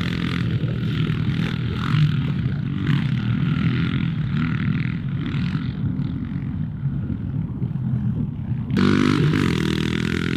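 Honda CRF110F pit bikes' small single-cylinder four-stroke engines running on a dirt track, rising and falling in pitch as the riders work the throttle. About nine seconds in, one bike passing close by suddenly gets louder and revs up.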